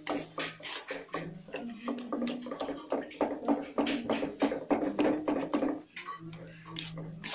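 A spoon scraping and pressing a thick mashed-potato stuffing against a black kadhai, about three short strokes a second, over a faint steady hum.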